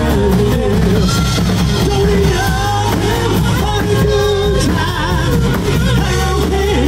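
A live rock band playing: a singer's voice over electric guitar, bass guitar and a drum kit, loud and continuous.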